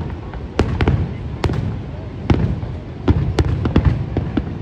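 Aerial fireworks going off: about a dozen sharp bangs at irregular intervals over a continuous low rumble of bursts and their echoes.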